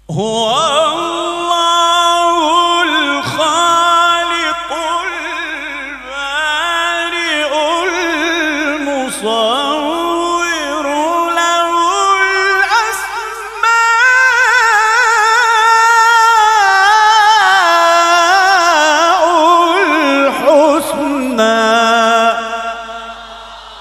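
A man's voice reciting the Quran in melodic tajweed style: long, ornamented held phrases with a wavering vibrato, broken by brief breaths, trailing off near the end.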